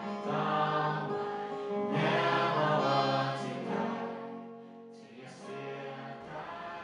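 A group of voices singing a slow worship song together, holding long notes. The singing dies down a little past the middle and comes back softer near the end.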